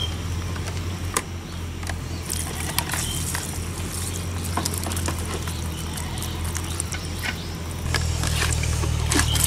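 A plastic-bottle fish trap being uncapped and emptied into a plastic colander, with scattered clicks, a pour of water and small splashes of live catfish. A steady low hum runs underneath and grows louder near the end.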